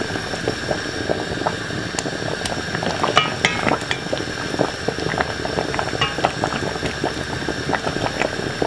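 Water boiling steadily in a pot beneath a stainless-steel colander, while a wooden spoon stirs steaming vegetables in the colander, giving irregular light knocks and clinks against the metal, a few of which ring briefly.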